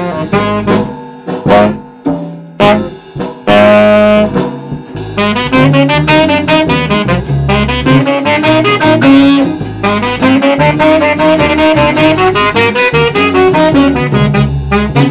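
Live saxophone with electric bass backing: short punchy notes with gaps, then a long, loud held note starting about three and a half seconds in, then fast running phrases over a steady bass line.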